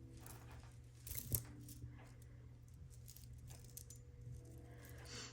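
Faint clicking and clinking of costume jewelry being handled, mostly plastic beads, with a couple of sharper clinks about a second in.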